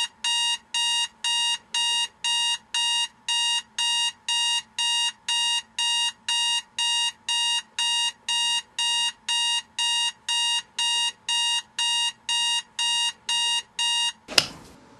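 Digital alarm clock beeping, about two high-pitched electronic beeps a second in an even, unbroken train. The beeping cuts off near the end with a sharp click, as if the alarm is switched off.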